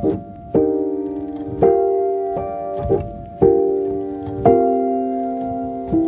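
Background piano music: slow sustained chords changing about once a second.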